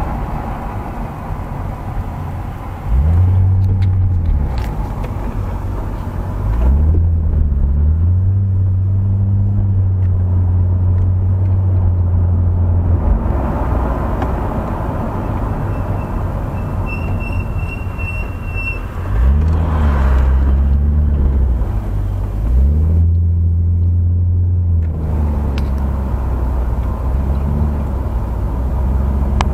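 Car engine and road noise heard from inside the cabin while driving: a low engine drone that rises and falls in pitch a few times as the car speeds up and changes gear.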